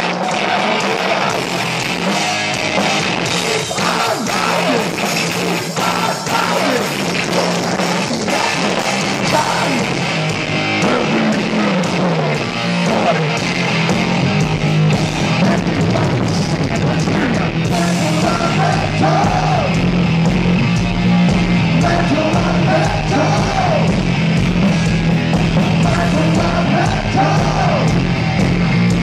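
Heavy metal band playing live: distorted electric guitar, bass and drums, heard loud and steady from within the crowd.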